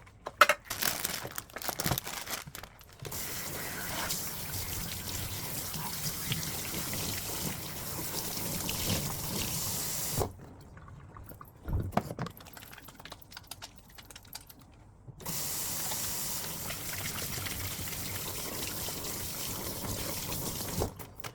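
Kitchen tap running into a sink during dishwashing, with dishes clattering at the start. The water stops about ten seconds in, a few knocks of dishes follow, and it runs again about five seconds later.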